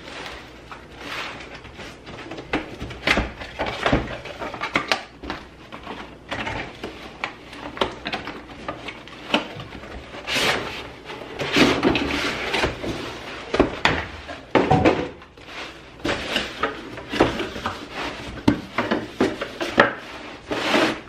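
Cardboard product box being handled and opened on a wooden workbench: irregular knocks, scrapes and sliding of cardboard against wood as the inner tray is pulled out.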